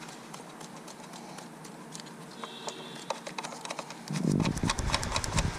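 A 10 mm bolt being threaded by a gloved hand into the PCV valve's mounting on a Honda engine: faint scattered clicks at first, then about four seconds in a run of quick metal clicks and knocks with low rumble from the hand working against the engine parts.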